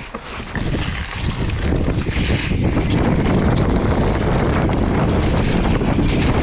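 Wind rushing over an action camera's microphone, mixed with a mountain bike's tyres rolling on a dirt trail, with scattered clicks and rattles early on. It grows louder over the first couple of seconds as the bike picks up speed, then holds steady.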